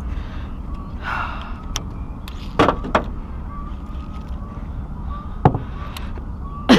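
Hard knocks on an aluminum fishing boat: single knocks about two and a half, three and five and a half seconds in, then a louder clatter near the end, over a steady low rumble.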